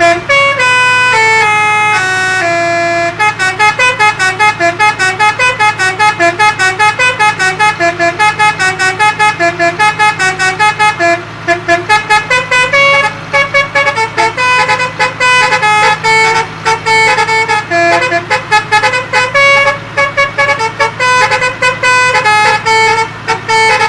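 Telolet-style multi-tone bus horn playing a fast tune of short notes in quick succession, with a couple of brief breaks, over a steady low hum.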